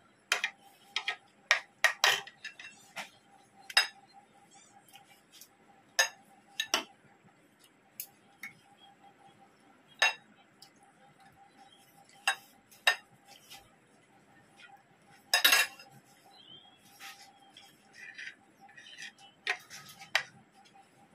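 Metal fork and spoon clinking and scraping against a ceramic plate, with a serving spoon knocking in a glass bowl: irregular sharp clinks, a quick run of them in the first few seconds and the loudest about fifteen seconds in.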